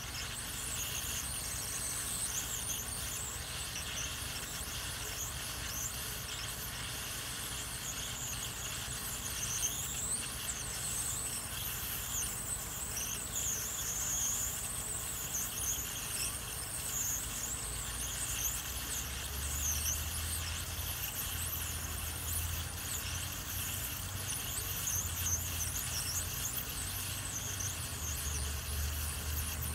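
Hot air rework gun blowing steadily on a circuit board: a constant airy hiss with a high, wavering whistle, heating a surface-mount IC to melt its solder for removal. A low hum comes in about two-thirds of the way through.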